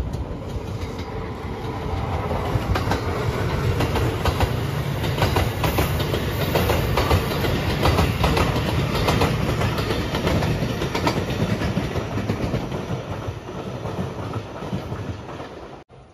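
Rapid Marine Liner electric train passing close by, its wheels clattering over rail joints in a rapid run of sharp clicks. The sound builds as it approaches, peaks mid-way as the cars go past, eases as it moves off, and cuts off suddenly near the end.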